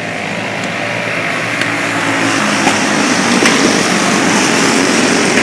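Alcohol-fuelled racing kart engines running as the field circles the track, a steady drone that grows gradually louder toward the end.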